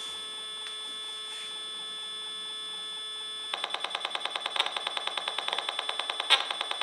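Audio output of an Esmog-Spion RF detector: a steady buzzing tone, the demodulated organisation channel of a mobile phone base station. About three and a half seconds in, a rapid, strictly regular ticking about ten times a second joins it, the beacon pulsing of a Wi-Fi router that has started transmitting, with one louder click near the end.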